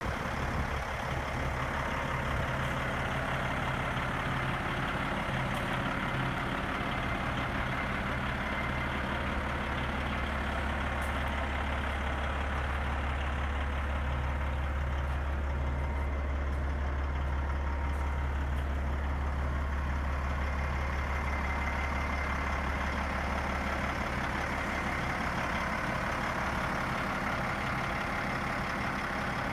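Peterbilt 379 day cab's heavy diesel engine idling steadily, a constant low rumble with no revving.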